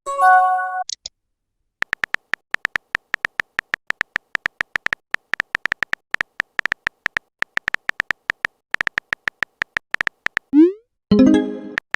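Electronic text-message typing sounds: short, high ticks repeating several times a second, stopping for about a second near the start. A rising swoop and a chime-like message alert come at the start and again near the end.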